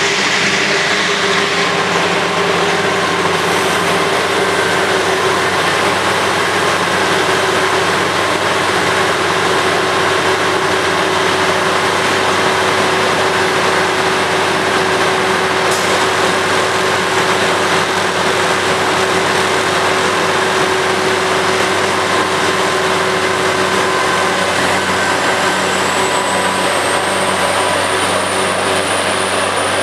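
Self-propelled forage harvester running under load as it cuts and chops standing whole-crop cereal for silage: a steady, heavy machine drone with several held tones. A high whine rises in near the end and then holds.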